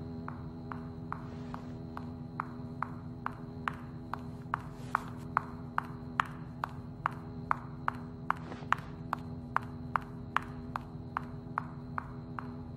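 Hard footsteps clicking on a smooth floor at a steady walking pace, about two and a half steps a second. They grow louder toward the middle and fade again, as if approaching and passing. Underneath runs a steady hum with a faint high whine.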